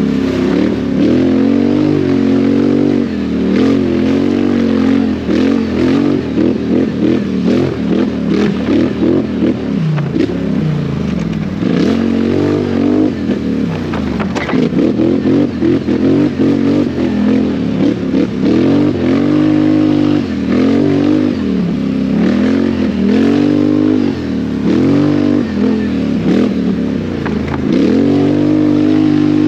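ATV engine running hard, its pitch rising and falling over and over as the throttle opens and closes, with scattered knocks and rattles.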